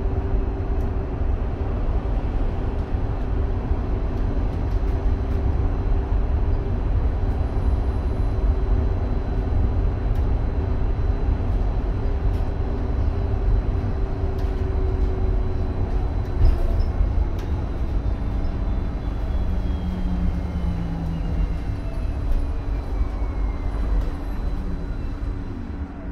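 Cabin noise of a Solaris Trollino 18 trolleybus with Škoda electric drive under way: a steady low rumble of tyres and road with a faint electric hum, and a few small rattles. In the second half a high electric whine falls steadily in pitch as the bus slows.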